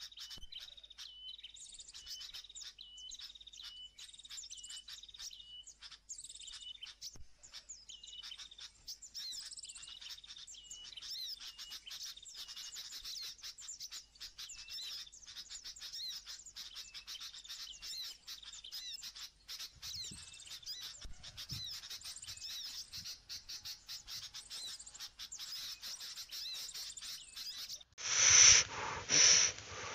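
Small birds chirping and calling continuously, many short repeated high notes overlapping. Near the end the sound changes abruptly to a louder rough rustling in several pulses.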